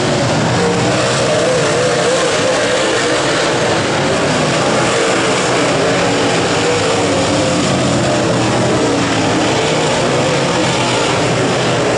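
Several dirt late model race cars' V8 engines running hard together at racing speed, a steady loud engine noise whose pitch wavers up and down as the cars pass and go through the turns.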